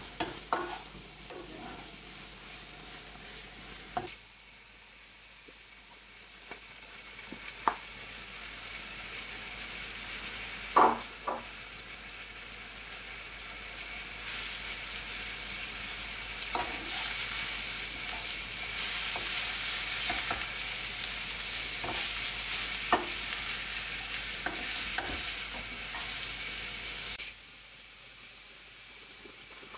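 Grated carrot, onion and beetroot frying in oil in a non-stick frying pan, sizzling as a wooden spatula stirs them, with a few sharp knocks, the loudest about eleven seconds in. The sizzle grows louder from about halfway through and drops away suddenly near the end.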